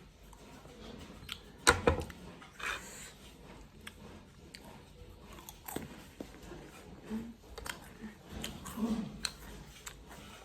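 Scattered small clicks and brief rustling handling noises, with one sharp click about two seconds in.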